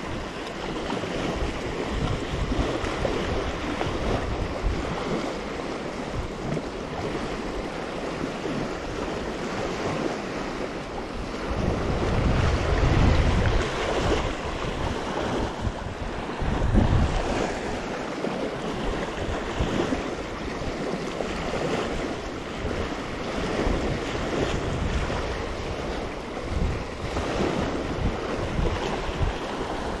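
Fast, shallow river rushing over rocks in riffles, a steady wash of water, with wind buffeting the microphone in gusts, strongest from about twelve to fourteen seconds in and again near seventeen seconds.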